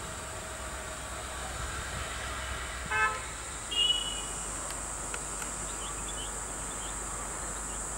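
A short horn toot about three seconds in, followed within a second by a brief higher-pitched tone, over a steady high hiss.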